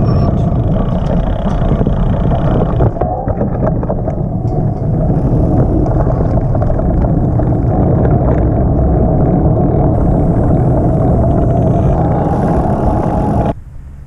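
Heavy, steady wind rumble on the microphone while riding, which cuts off abruptly near the end.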